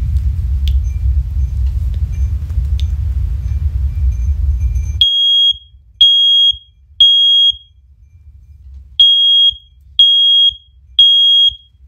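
First Alert OneLink hardwired smoke alarm sounding on test in the temporal-three pattern: three loud, high-pitched beeps about a second apart, a pause, then three more. For the first five seconds or so a loud low rumble covers it, with only faint beeps behind.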